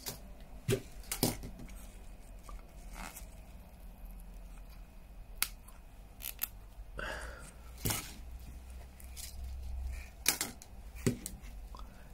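Hands handling and unwrapping a small plastic decoration wrapped in ribbon: scattered small clicks and taps with short bursts of rustling, the longest about seven seconds in.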